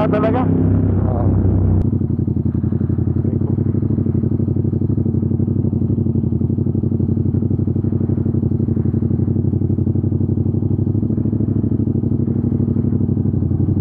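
Motorcycle engine running steadily while riding, picked up on the bike itself, with a fast even pulse of engine firing. About two seconds in there is a click and a deeper hum drops away, and the engine carries on at a steady pitch.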